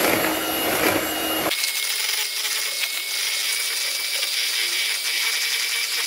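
Kraftline electric hand mixer running steadily, its metal beaters whisking egg and sugar in a plastic bowl. It makes a motor whine that shifts to a lower pitch about a second and a half in.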